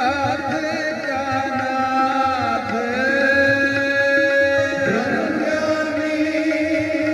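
Sikh kirtan: men's voices singing long, wavering notes over harmonium and a steady tabla beat. About three seconds in, one note is held for two seconds before the melody falls.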